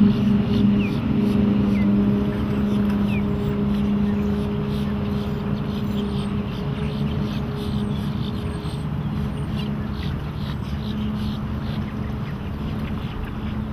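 Twin Volvo Penta 4.3 GXi V6 inboard engines of a Cruisers Yachts 280 CXi cabin cruiser running at cruising speed as the boat passes across the water. The steady low engine drone slowly gets quieter.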